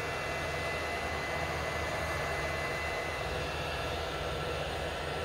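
Anycubic Kobra Max 3D printer running mid-print: a steady whirring hum from its fans and motors, with a thin, constant high whine.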